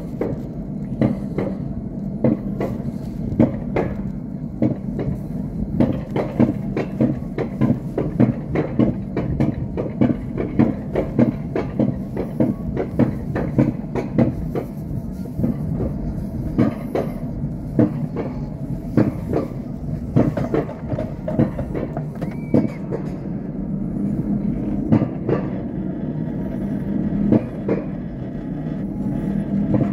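Alpine coaster sled being hauled uphill on its steel tube track: a steady rumble and rattle with frequent clacks.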